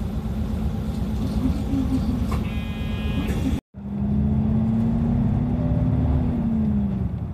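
Nagoya guideway bus running: engine and road rumble with a steady low hum, and a brief high-pitched electronic tone about two and a half seconds in. After an abrupt cut, the engine note rises slightly and then eases off.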